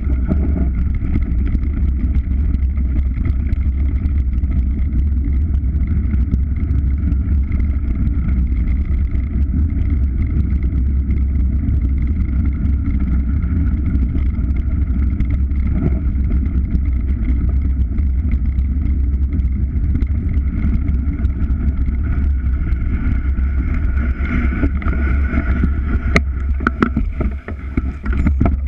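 Steady low rumble of a moving vehicle as heard on a GoPro, engine and travel noise with no change in pace. A few sharp knocks near the end.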